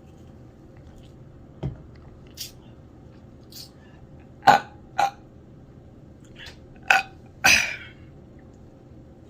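A person burping from a carbonated drink, Dr Pepper: a string of short, sudden burps, the loudest near the middle and a longer one near the end.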